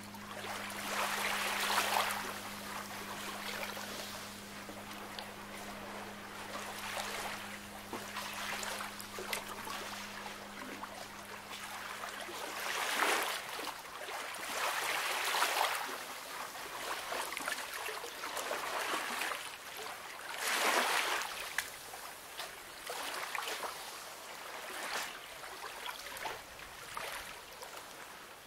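Gentle sea waves washing in, a soft hiss that swells and falls away every few seconds. A low steady hum runs under it and stops about halfway through.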